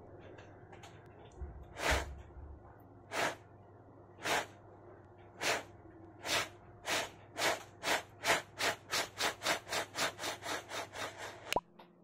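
Short puffs of breath blown close into a phone's microphone, imitating a steam train's chugging. A few slow puffs gather speed to about four a second, then a sharp click cuts them off near the end.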